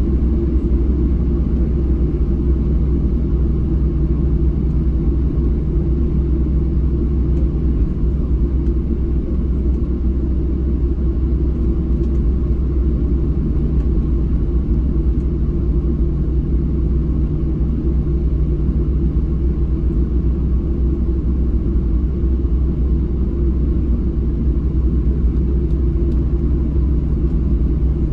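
Steady low rumble inside the cabin of a Boeing 737-700 airliner with its engines running, even in level throughout.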